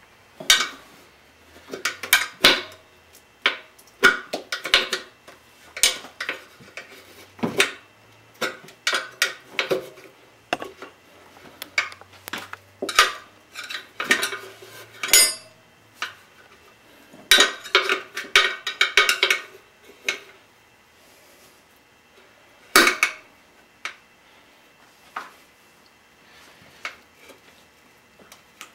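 Steel tire irons clinking and clattering against a spoked motorcycle wheel's metal rim as the second tire bead is levered off. The clatter comes in a long run of sharp knocks, then stops. One loud clank follows, and a few light taps after it.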